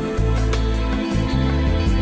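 Instrumental background music, with held notes over a bass line that changes every half second or so.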